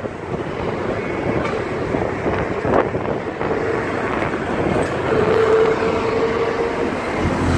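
Wind and road noise on a moving motorcycle, with the motorcycle's engine running underneath. A steady hum joins in about halfway through and drops away near the end.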